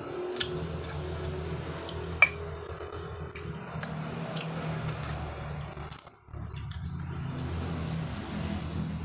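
Close-up eating sounds: chewing a meal of fried noodles, with sharp clicks of cutlery against a plate, one loud click about two seconds in, over a steady low hum.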